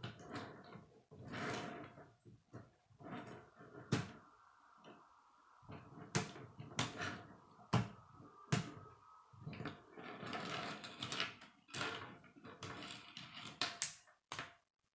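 Plastic K'nex rods and connectors clicking and rattling as they are handled and snapped together, with irregular sharp clicks between stretches of rustling.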